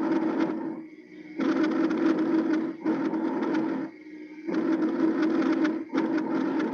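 Auscultation recording of normal lung breath sounds: a rushing sound of breathing in and out, each phase lasting a little over a second with short pauses between them, about two and a half breaths in all.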